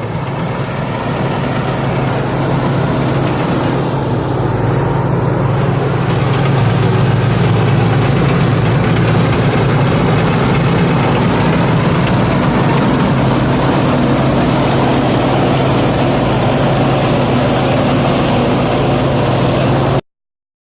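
Rice combine harvester's diesel engine running steadily under load, with a deep drone and a mechanical clatter, growing louder over the first few seconds. The sound cuts off abruptly near the end.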